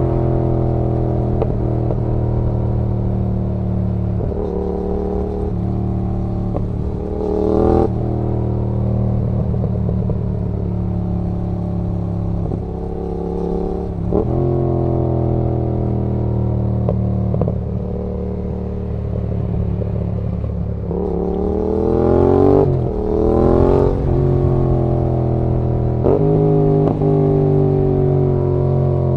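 Yamaha XSR700 parallel-twin motorcycle engine running on a downhill ride. The revs fall away in long slow glides, broken by sudden jumps in pitch at gear changes. The engine rises again under throttle about three-quarters of the way in.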